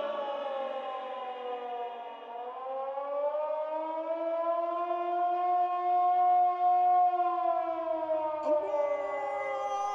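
A wailing air-raid siren: its pitch sinks, climbs slowly to a peak about two-thirds of the way through, then sinks again.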